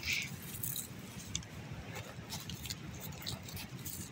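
Footsteps crunching over dry needle litter and twigs on a forest floor: a run of short, irregular crackles, the loudest right at the start, over a low steady rumble.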